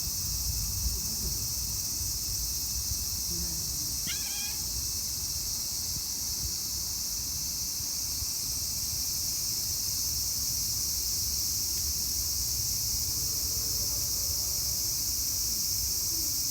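Insects chirring steadily in a dense high-pitched chorus, with one short high call about four seconds in and a low rumble underneath.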